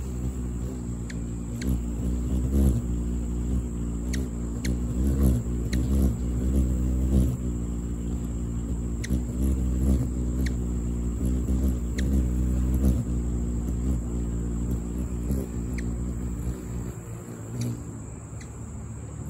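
Ruby-throated hummingbird's wings humming as it hovers close at a hand-held feeder, a low buzzing hum whose pitch wavers. The hum fades near the end as the bird flies off.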